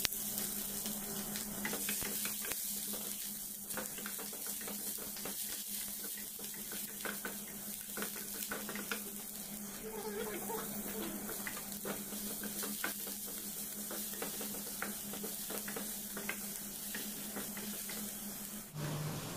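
Chopped onion and garlic sizzling steadily in hot oil in a small frying pan as they are sautéed, with frequent clicks and scrapes of a utensil stirring and tapping against the pan.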